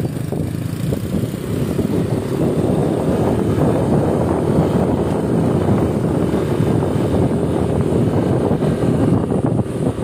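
Steady noise of a motor scooter ride on the move: small engine running at an even speed, mixed with road and wind noise.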